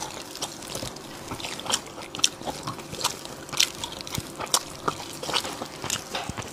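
Close-miked eating sounds: a person biting into and chewing a golden-brown piece of food held in both hands. There are irregular sharp clicks and mouth smacks throughout.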